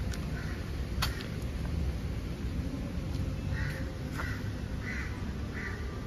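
Crows cawing: four short caws in the second half, over a steady low outdoor background rumble, with a sharp click about a second in.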